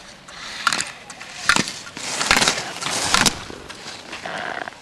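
Slalom skis scraping and carving on hard-packed snow, with a few sharp clacks typical of slalom gate poles being knocked aside.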